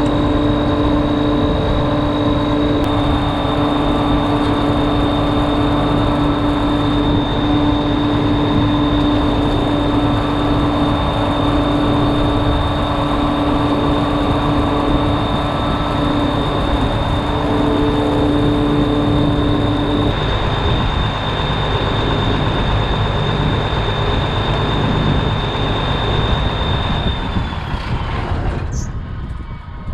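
Combine harvester running under load with steady machine whines. A low hum cuts out about two-thirds of the way through, then a high whine slides down and the overall noise falls away near the end as the machinery winds down.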